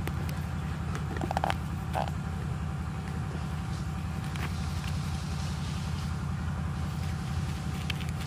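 A steady low hum of an engine running, with a few faint short sounds about a second and two seconds in.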